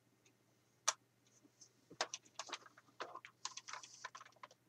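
Clicks and knocks of a shotgun being handled and lifted into view: one sharp click about a second in, then a quick irregular run of clicks and rattles for about two and a half seconds.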